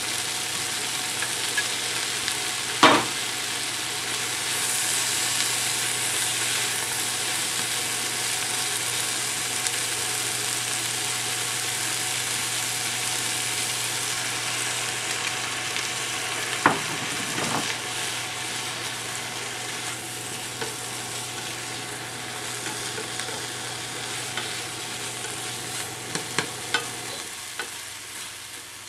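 Spinach, scallops and crab sticks sizzling in a frying pan as they are stir-fried, with a few sharp knocks against the pan, the strongest about three seconds in. The sizzle fades near the end.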